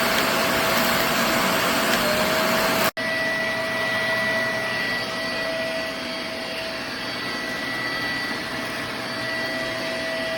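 elezon F800 500 W corded stick vacuum running with a steady motor noise and a held whine. The sound drops out for an instant about three seconds in, then carries on unchanged.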